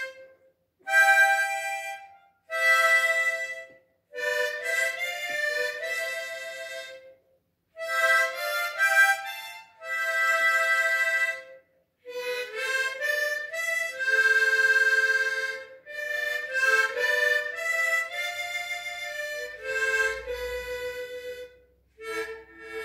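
Two-sided harmonica (a major side and a minor side) playing a slow melody with several notes sounding at once, in phrases of a few seconds separated by short breath pauses.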